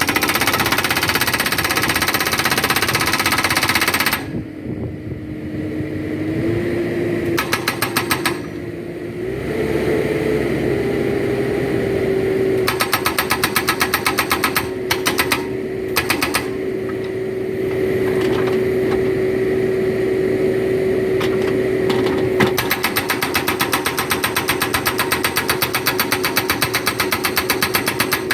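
Backhoe-mounted hydraulic rock breaker hammering in rapid blows, first in a long run, then in short bursts, then steadily again near the end. Under it the backhoe's engine runs, its pitch stepping up twice early on as it takes load.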